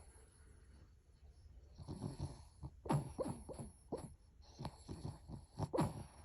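Snoring: quiet for the first couple of seconds, then a run of short, irregular snores, the loudest about three seconds in.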